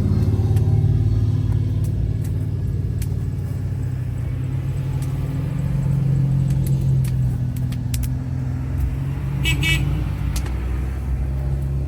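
Off-road four-wheeler engines running nearby, a steady loud drone that swells about six seconds in, with gear whine audible alongside the engines.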